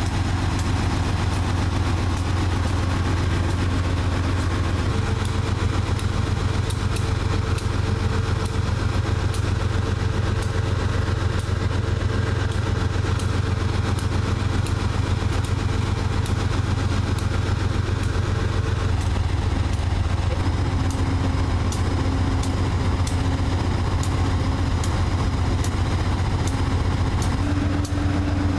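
Amtrak GE P32-8 (Dash 8) diesel-electric locomotive idling at a standstill: the steady rumble of its V12 diesel. A faint whining tone sets in about five seconds in and drops out past the middle, and another comes in near the end.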